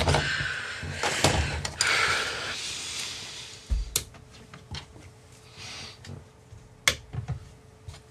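Scraping and rustling as a carbon-fibre quadcopter frame is slid and repositioned across a plastic cutting mat, fading out after about three seconds. After that come a few separate sharp clicks and knocks of parts being set down and handled.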